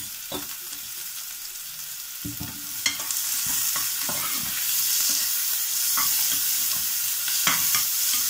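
Chopped onions sizzling in hot oil and ghee in a pressure cooker while a spatula stirs them, with clicks and scrapes of the spatula on the metal. The sizzle grows louder once the stirring gets going, about three seconds in.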